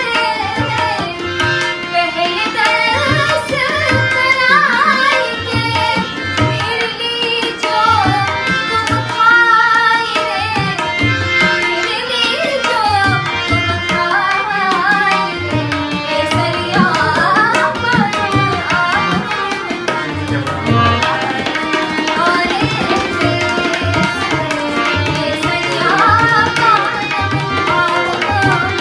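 Tabla and harmonium playing an Indian song with a sung melody. The tabla's bass strokes keep a steady rhythm under the wavering, ornamented vocal line.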